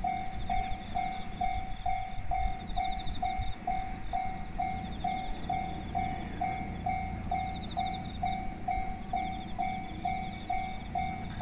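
Japanese level-crossing warning bell ringing steadily at about two strikes a second, warning that a train is coming. A high trilling chirp comes and goes over a low steady rumble.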